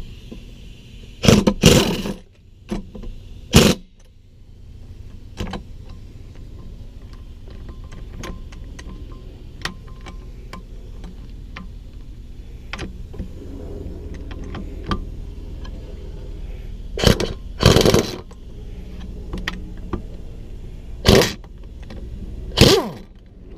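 Impact wrench driving the bolts on a GM power steering pump in short bursts: a pair of runs near the start, then a long pause with small metal clicks, then several more runs in the second half. A steady low hum lies under it throughout.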